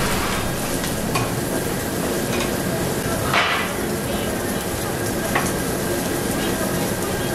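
Thick-cut pork belly sizzling steadily on a tabletop barbecue grill, with a few light clicks of chopsticks on metal.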